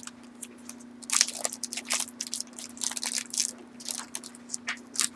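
Trading cards being handled and shuffled by hand: a run of crisp clicks and rustles as the cards slide and snap against each other, busiest about a second in and again around three seconds in.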